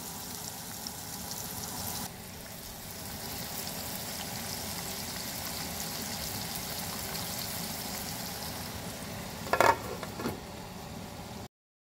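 Brook trout frying in a pan of hot fat, a steady sizzle; near the end two short knocks as a glass lid is set on the pan.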